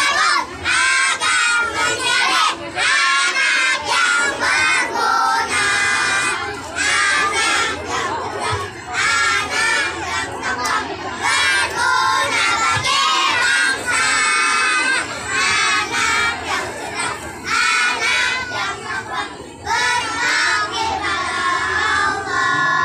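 A children's choir singing loudly in unison, close to shouting, in short phrases with brief breaks.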